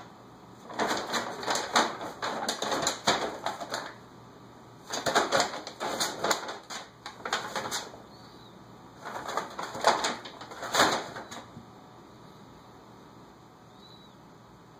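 Large paper shopping bag crinkling and rustling as a kitten moves around inside it, in three bursts of a few seconds each.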